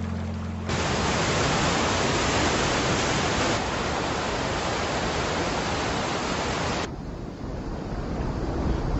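River rapids rushing: a loud, steady hiss of white water that starts abruptly about a second in and cuts off sharply about seven seconds in. A quieter, low rumble of water follows.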